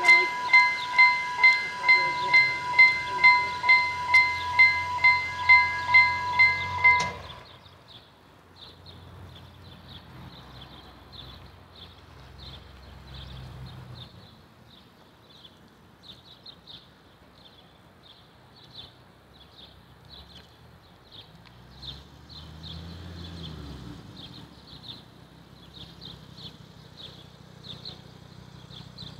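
Vialis EBA electronic level-crossing bell ringing with a rapid, even stroke, about two strikes a second, then cutting off suddenly about seven seconds in. A quiet low rumble and faint regular ticking are left after it.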